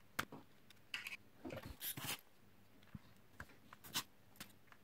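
Plastic housing parts of a Nikon SB-900 flash head being handled and fitted together: a sharp click shortly in, a short run of scraping and rubbing about one to two seconds in, then a few more light clicks.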